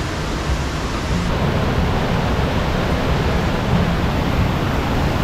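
Waterfall and fast-flowing stream rushing steadily.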